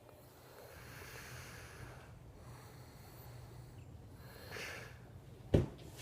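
A sleeping man snoring and breathing noisily, two long breaths, then a sudden loud thump near the end.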